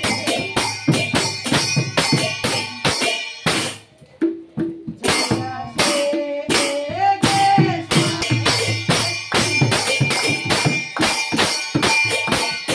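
Large brass hand cymbals clashed in a quick, steady rhythm with a hand drum beneath them, the cymbals ringing between strikes. The playing breaks off briefly about four seconds in and resumes, with a singing voice holding a rising note past the middle.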